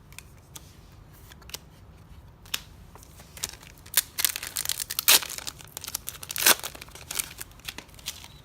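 A Yu-Gi-Oh booster pack's foil wrapper being torn open and crinkled. It starts with a few faint ticks and grows into a dense run of sharp crackles about two and a half seconds in, with the loudest tears about halfway through.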